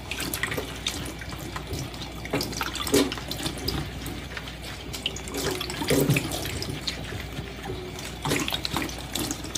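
Water running and splashing, with irregular clinks throughout and a few soft knocks.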